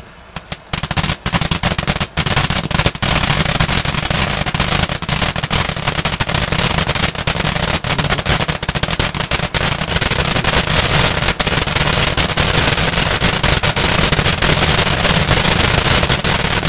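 Ground firework fountain from the 'Fountain show-off' 03062 set burning: a steady hiss packed with dense crackling, many rapid sharp pops from crackling stars. It begins with a few scattered pops, then thickens into continuous crackling within the first second or two.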